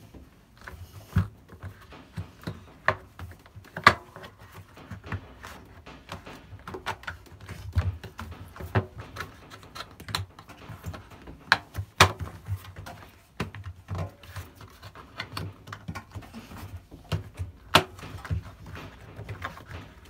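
Irregular handling noise as a rubber washing machine door seal is worked by hand onto the lip of the outer tub: scattered taps, knocks and rubbing, with a few sharper clicks.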